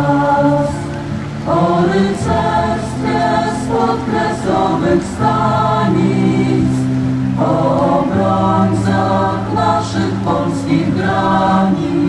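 A choir singing slowly in long, held chords, with a sustained low part under the higher voices.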